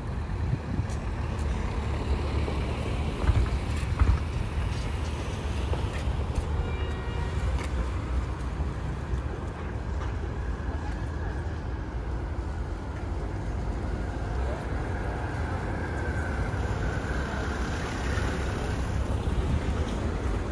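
Urban street ambience: steady traffic noise from passing cars, with faint voices in the background.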